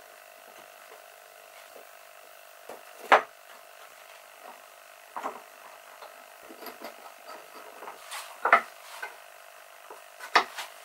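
Scattered wooden knocks and clacks of pine pieces being handled and set down, with the loudest about three seconds in, about eight and a half seconds in and near the end, over a faint steady hum.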